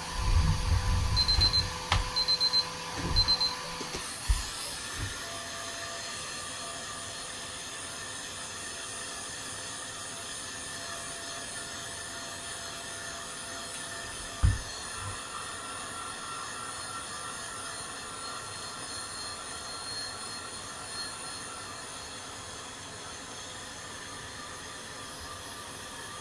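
A few short high electronic beeps among handling knocks, then a machine starts and runs with a steady whirring hum. There is one sharp thump about halfway through.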